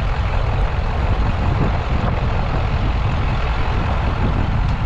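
Steady road and engine rumble of a moving vehicle, heard from inside the cab.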